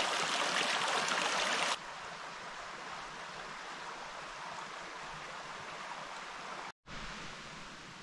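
A small forest stream running over stones, a steady rush of water, close and fairly loud for the first couple of seconds. It then cuts abruptly to a fainter, steady rush, with a split-second dropout to silence near the end.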